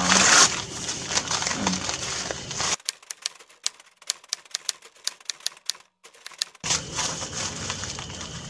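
Paper-and-tape wrapping being torn and peeled off a long parcel: a loud rip at the start, then rustling and crackling, with a stretch of rapid, irregular clicking in the middle.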